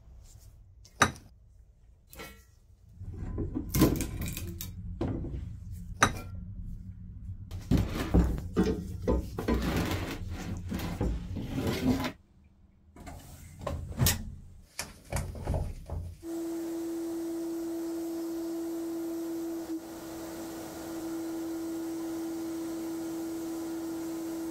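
Knocks, clinks and clatter as cast-metal garden bench frames are handled and laid in a sandblasting cabinet. About two-thirds in, the cabinet's blast gun starts suddenly with a steady hiss and a steady hum, abrasive-blasting the old paint off the frames.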